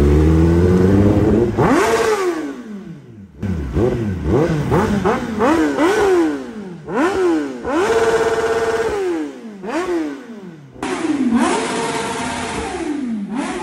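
Kawasaki ZX-10R sportbike's inline-four engine revved again and again with quick throttle blips, about ten revs that each rise sharply and fall back, with one held high for about a second midway.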